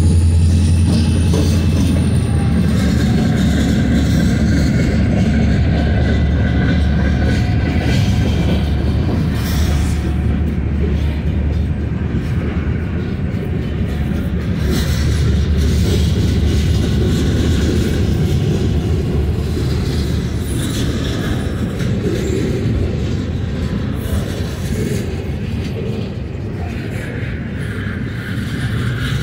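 Diesel freight train passing close by: locomotive engine rumble at first, then freight cars rolling past with a steady heavy rumble of wheels on rail and clickety-clack over the joints. A grade-crossing bell rings throughout.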